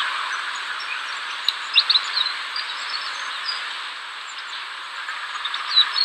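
Outdoor ambience: a steady high hiss with short bird chirps scattered through it.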